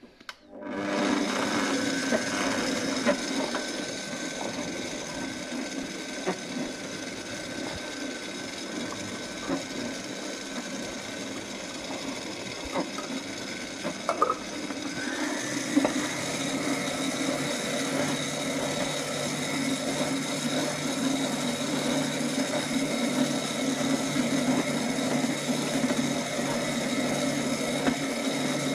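Electric stand mixer running, its motor working flour, water and oil into a dough, with a steady whine and a few light knocks. Its tone shifts about halfway through.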